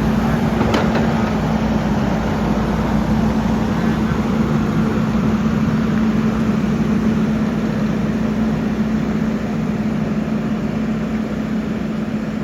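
Kubota 75 skid steer's diesel engine running steadily close by, a loud even drone with a strong steady hum; it eases off slightly near the end.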